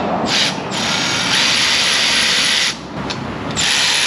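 A power tool run in bursts: a harsh, steady hiss that cuts in and out several times.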